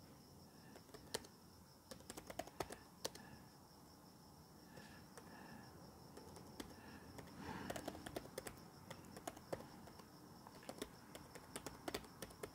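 Typing on a laptop keyboard: quick runs of light key clicks, a burst around two to three seconds in and more steady typing through the second half. Crickets chirp faintly behind it.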